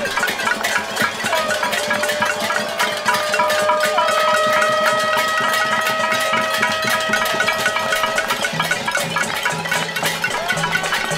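Protest noise-making: a crowd banging pots and pans and clapping, a dense continuous clatter of metal strikes. A held tone sounds over the din for several seconds in the middle.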